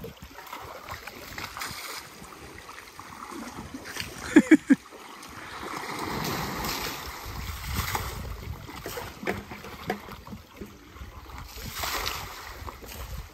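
Water splashing and sloshing as a bucket of water is thrown over elephants bathing waist-deep in a river pool, swelling twice. About four and a half seconds in there is a brief burst of voice.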